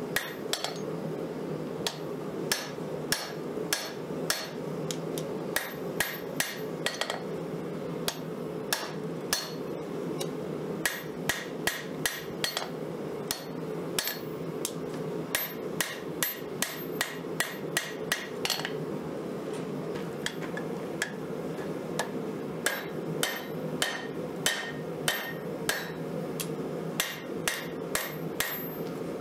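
Hand hammer forging a red-hot 5160 spring-steel knife blank on an anvil: quick blows with a short metallic ring, in runs broken by pauses of a few seconds. A steady low rushing noise runs underneath.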